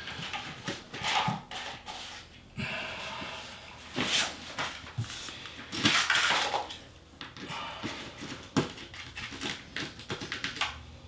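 Light scattered clicks and scrapes of plastic tile leveling clips being pulled and swapped under the bottom edge of a porcelain wall tile, with a couple of short rushes of noise about four and six seconds in.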